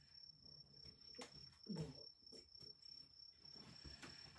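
Near silence: room tone with a steady faint high-pitched whine and a few faint clicks in the middle.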